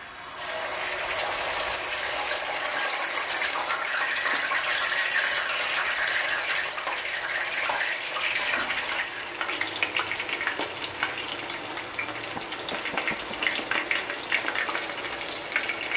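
Two whole scaled snapper frying in hot oil in a cast-iron skillet. A loud, steady sizzle rises just after the fish go in, then after about nine seconds it settles into quieter crackling and popping.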